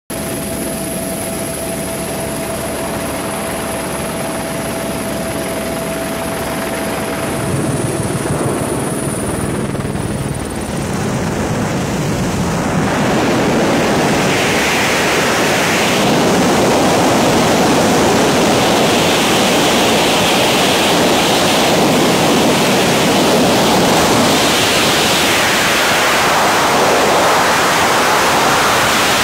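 Aircraft engine noise with a steady whine at the open door before the jump, fading out about eight to ten seconds in. Then a loud rush of wind over the wingsuit flyer's helmet camera builds and holds at flying speed.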